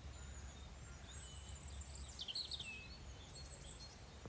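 Small birds chirping and twittering briefly over a faint, steady low background rumble, the chirps clustered between about one and a half and three seconds in.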